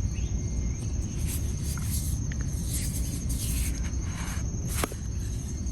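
Handling sounds of the screwdriver kit's storage case: light scraping and rustling, then a sharp click near the end, over a steady low hum and a faint high-pitched whine.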